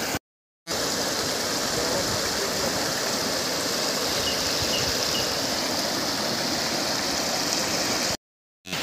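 Floodwater flowing fast across a submerged road, a steady rushing sound. It drops out to dead silence briefly just after the start and again near the end.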